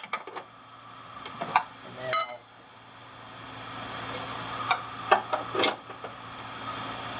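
Metal hand tools and loose steering-linkage parts clinking and knocking against each other as they are handled: about half a dozen separate sharp clinks with short pauses between them.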